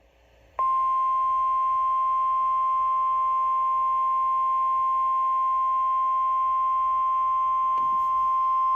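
Weather-radio alert tone: a single steady, loud high-pitched beep near 1 kHz that starts about half a second in and holds without a break. It is the attention signal that announces an emergency weather warning is about to be read.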